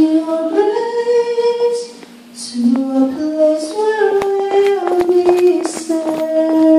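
A woman singing a slow melody from an Italian song, holding long notes and stepping between them, with scattered sharp clicks in the middle.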